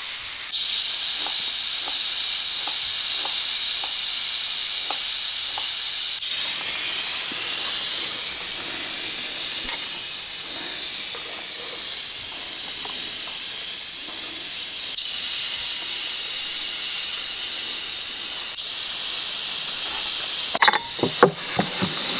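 Hot grilled camel-meat shashlik sizzling: a steady high hiss that steps up and down abruptly a few times. Near the end comes a short cluster of clinks, with metal skewers being handled.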